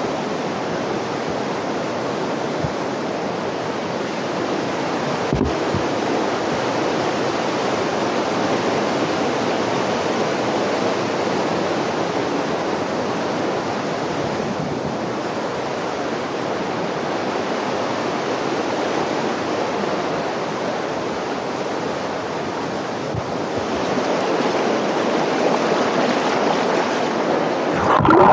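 A swollen river rushing over rocks in whitewater cascades, making a steady, full rush of water. The river is running high with winter rain.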